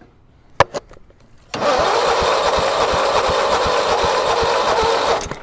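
A click, then the 13 hp overhead-valve engine cranking on its electric starter for about three and a half seconds, with an even beat of about five a second, before it stops without the engine firing. This is a cold start with the choke on after months of storage; the carburettor is dry and no fuel is reaching it.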